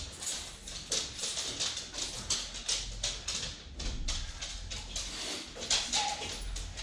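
Dogs' claws clicking and tapping irregularly on a hard wood-look floor as the dogs move about, mixed with footsteps and the rustle of gear.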